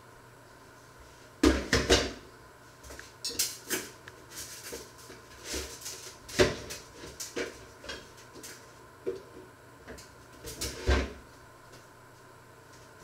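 Kitchenware being handled: a run of knocks, clinks and rattles, with the loudest clusters about a second and a half in, midway and near the end.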